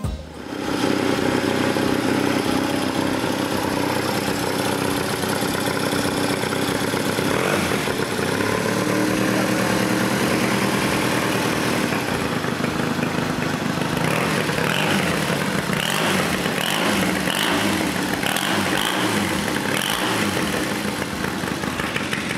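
1965 Triumph Tiger 100SC's 500cc parallel-twin engine running steadily at idle, with a somewhat more uneven, pulsing note in the second half.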